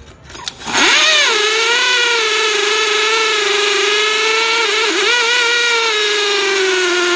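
DeWalt DCD996 brushless cordless drill spinning up after a few light clicks and running at a steady high whine, with a brief dip in pitch about five seconds in.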